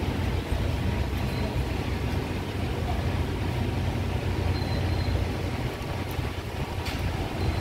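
Steady low rumble of city traffic, with one short click near the end.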